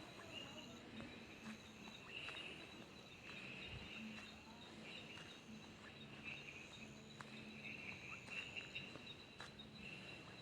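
Faint night chorus of insects such as crickets: a steady high-pitched drone with overlapping pulsing trills that come and go every second or so, and a few faint scattered clicks.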